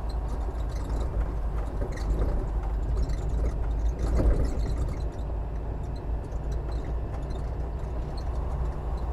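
Semi truck's diesel engine running steadily under a low rumble of engine and road noise, heard from inside the cab.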